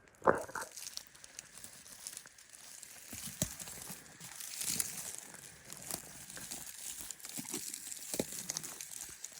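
Dry rustling and crackling with scattered small clicks, and one loud thump just after the start.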